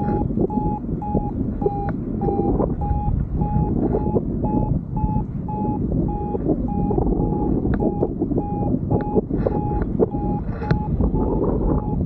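Paragliding variometer beeping steadily, about two to three short mid-pitched beeps a second, the tone it gives while the glider is climbing in lift. Underneath, loud wind rumble on the microphone from the airflow in flight.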